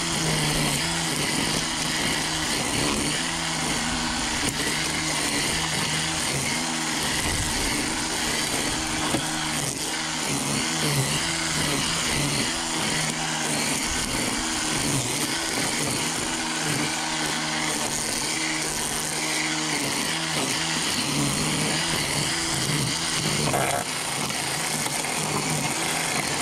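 DEWALT DCST922B 20V cordless string trimmer running at full trigger on its low speed, its line whipping through weeds. The motor whine wavers up and down as the line meets the growth.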